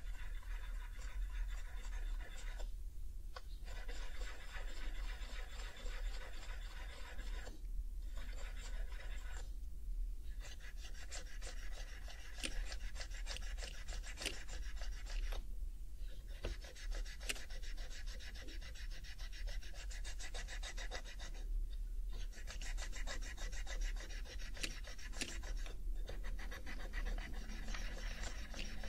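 An alcohol pad scrubbing back and forth over the plastic keycaps of an HHKB Professional 2 keyboard, with brief pauses between runs of strokes and occasional light clicks as the pad catches key edges.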